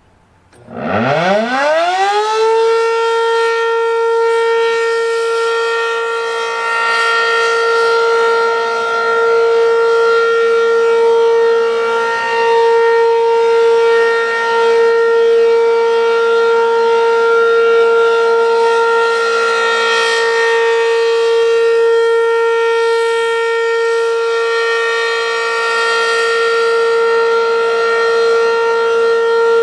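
ACA P-15 outdoor warning siren starting up: its pitch climbs quickly over about two seconds, then it holds a loud, steady alert tone with slight swells in level.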